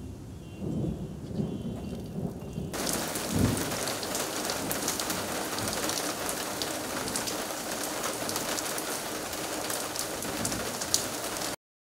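Low thunder rumbles over a faint cicada buzz. About three seconds in, the sound switches to steady rain falling on a street and lawn, with another low thunder rumble shortly after. Near the end the sound cuts off suddenly.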